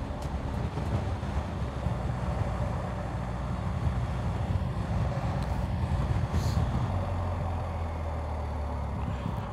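Wind rush and road noise over the BMW R 1250 GS Adventure's 1254 cc boxer twin at motorway speed, heard from a bike-mounted camera. The engine note drops into a steadier low hum as the bike slows for the exit.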